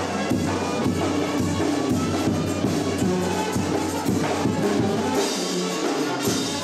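Brass band playing, horns holding notes over a steady drum beat.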